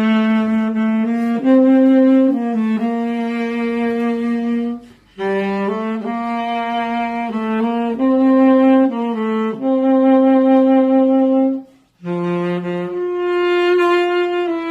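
Tenor saxophone playing a slow melody of long held notes, in three phrases with short breaks between them.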